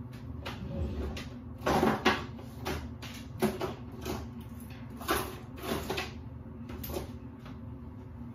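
Irregular knocks, clatter and rustling of things being handled and moved about, the loudest cluster about two seconds in.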